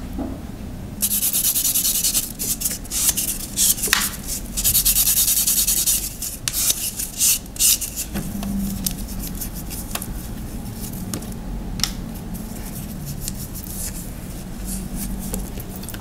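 A fingernail's surface is sanded by hand in quick scratchy strokes for about five seconds. Lighter scattered rubs and clicks follow.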